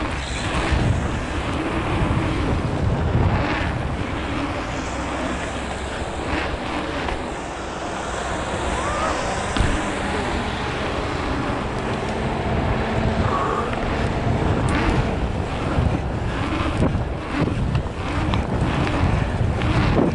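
Wind buffeting the microphone of a camera riding a bicycle around an asphalt pumptrack, with rumbling tyre noise that swells and dips through the turns and rollers. A few sharp knocks come from the bike.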